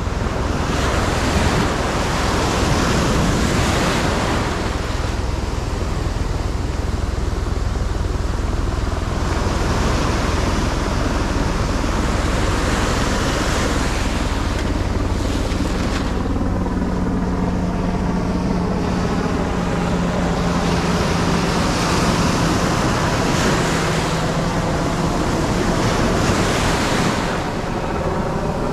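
Ocean surf breaking and washing over the sand in swells that rise and ease several times, with wind rumbling on the microphone. A faint steady low hum runs through the middle.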